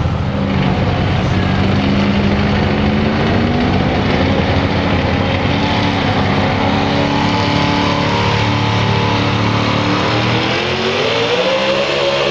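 Pulling-truck engine running loudly with open exhaust at a fairly steady pitch, then revving up about ten and a half seconds in and holding at a higher pitch. The revving engine is a supercharged pulling truck's engine.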